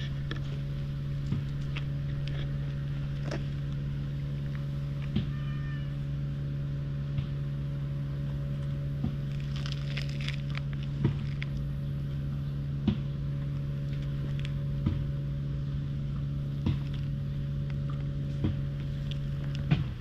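A steady low hum with several overtones that holds one pitch and stops just before the end, with one short cat meow about five seconds in and scattered light taps.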